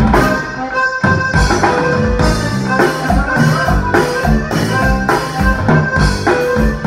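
Conjunto band playing live: a button accordion carries the melody over electric bass and a drum kit, with a steady beat about twice a second.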